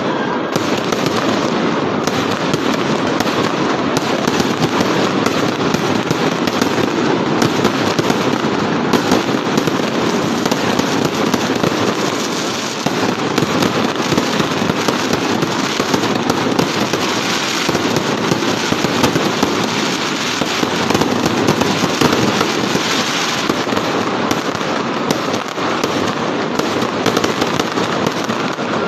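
Fireworks going off in a continuous barrage: a dense, unbroken crackling and popping with no pauses.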